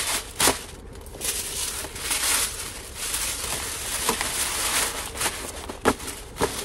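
Tissue paper rustling and crinkling as it is stuffed into a paper gift bag, with a few sharp crackles.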